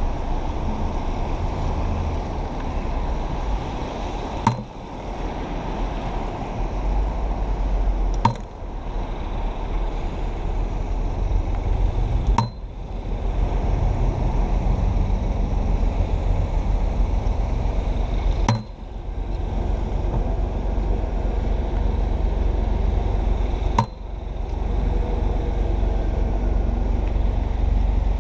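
Muffled low rumble of clothing and wind against a body-worn camera's microphone, with car traffic on a wet street. A sharp click comes every four to six seconds, each followed by a brief dip in the level.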